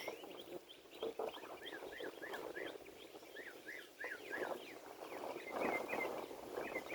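Young ducks chirping, a steady run of many short, high peeps from several birds at once. Patches of rustling, likely the tarp in the wind, come about four and six seconds in.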